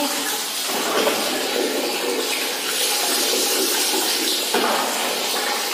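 Water poured from a basin over a cat during a bath, running and splashing steadily from about a second in.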